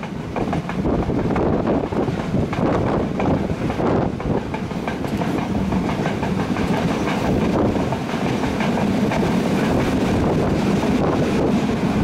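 Moving train hauled by locomotive M5c 782, its wheels clattering over the rail joints with a continuous rumble. The clatter is busiest in the first half and settles into a steadier rumble later.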